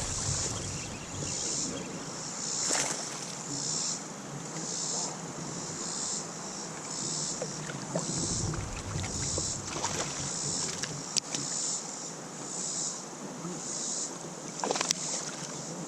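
Outdoor sound around a kayak on a river: a steady wash of water and air, with a high chirring that pulses about once a second and a few sharp clicks.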